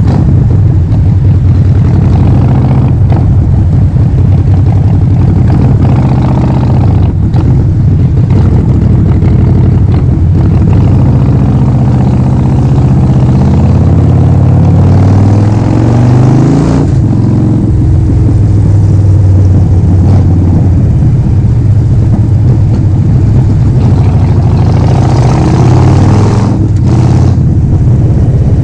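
Harley-Davidson Forty-Eight XL1200X's 1200 cc V-twin running loud through a Vance & Hines full exhaust while riding. The engine note holds steady with several brief drops, and it rises in pitch about halfway through before falling off sharply.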